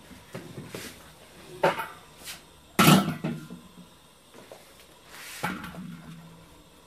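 A few sharp clatters and scrapes as the gas tandoor's metal lid and a baked roti are handled, the loudest about three seconds in.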